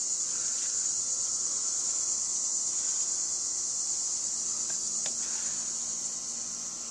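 A steady, high-pitched chorus of crickets, with a faint tick about five seconds in.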